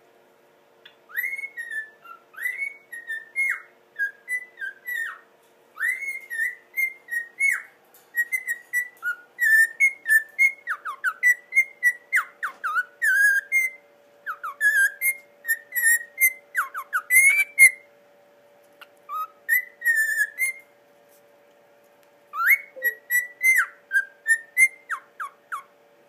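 Cockatiel whistling a tune in quick, chirpy whistled notes, in several phrases a few seconds long with short pauses between.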